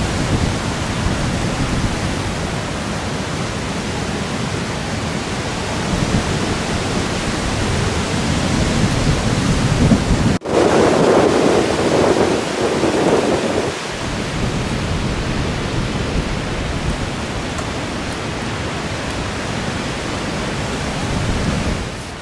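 Strong gusty wind buffeting the microphone, in gusts of up to about 40 mph. The sound cuts out for an instant about ten seconds in, followed by a louder gust lasting a few seconds.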